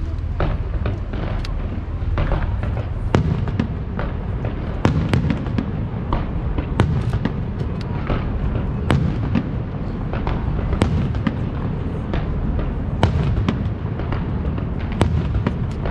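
Aerial fireworks display: an irregular string of sharp bangs and cracks from bursting shells, several a second at times, over a continuous low rumble.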